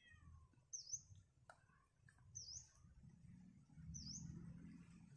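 A bird calling: a short, high chirp that dips and rises in pitch, repeated three times about a second and a half apart. A low rumble builds underneath in the second half.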